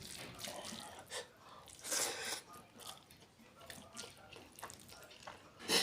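Wet mouth sounds of a person eating curry: a few irregular lip smacks and slurps, the loudest near the end.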